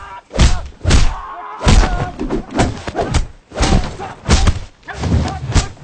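Rapid series of dubbed fight-film impact effects: about ten heavy punch and kick thuds in quick, uneven succession, with grunts and shouts between the blows.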